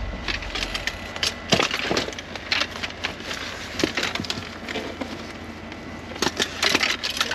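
A string of sharp knocks and clatters with rustling between, from fishing gear (rods, reels and tackle) being handled and pulled out of a van; the loudest knocks come about a second and a half in and again near the end.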